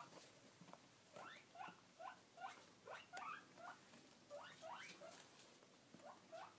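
Kinkajou giving a run of faint, short squeaks, each falling in pitch, about two a second.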